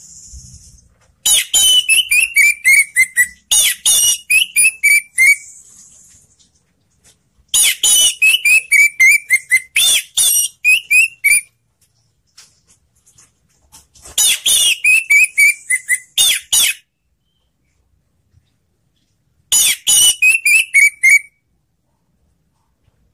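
Orange-headed thrush (anis merah) singing in four bursts of rapid, sharp notes, each burst ending in a run of notes that steps down in pitch, with short pauses between the bursts.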